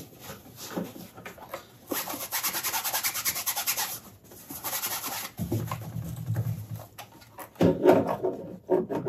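A paper towel wet with rubbing alcohol is rubbed briskly back and forth to clean a surface for adhesive, several quick strokes a second for a few seconds in the middle. Some louder handling knocks come near the end.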